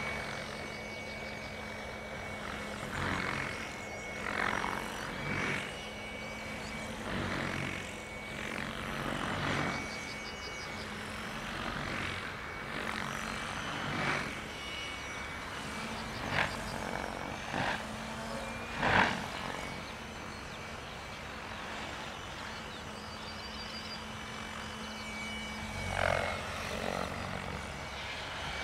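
Compass Chronos 700 electric RC helicopter flying 3D aerobatics at a low 1400 rpm headspeed: a steady motor and gear whine under repeated surges of rotor blade noise as the blades load up in the manoeuvres, about a dozen of them, the loudest roughly two-thirds of the way through.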